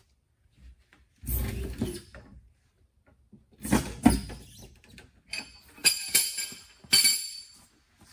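Irregular clanks, scrapes and rattles of metal being worked under the rear of a Ram ProMaster van at its spare-tire winch and crank rod, in several separate bursts; the last few, between about five and seven seconds in, have a thin metallic ring.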